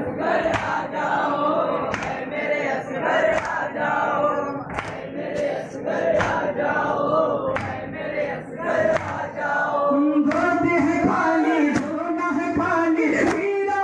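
A crowd of men chanting together loudly in unison, a Muharram mourning chant, with sharp beats recurring through it.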